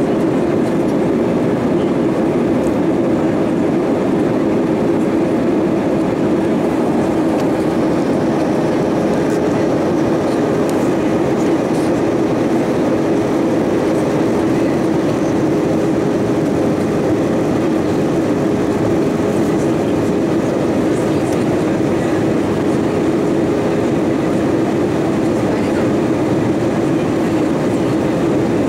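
Steady cabin noise inside an Airbus A320-232 jet airliner: an even rush of engine and airflow noise with a constant hum.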